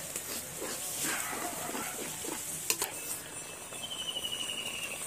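A ladle stirring and scraping through pumpkin halwa in an aluminium kadai while the ghee and melting sugar sizzle and bubble, with one sharp clink of the ladle about halfway through.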